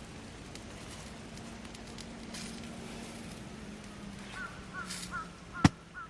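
A bird calling in a quick run of short, repeated high notes, about three a second, over a low steady hum that fades out; a single sharp click near the end is the loudest sound.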